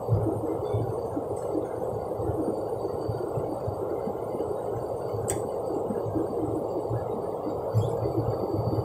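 Jet airliner cabin noise: a steady rush of engine and airflow sound with an uneven low rumble underneath. A single sharp click comes about five seconds in.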